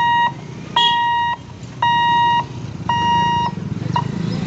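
Electronic warning hooter of a railway level-crossing gate sounding while the boom barrier lowers: long, even beeps about once a second that stop about four seconds in, as the barrier comes down. A low steady rumble runs underneath.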